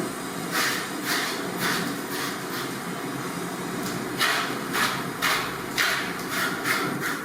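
Pork being chopped with a blade: sharp chops, three spaced about half a second apart, then after a pause a quicker run of about seven, over a steady background rumble.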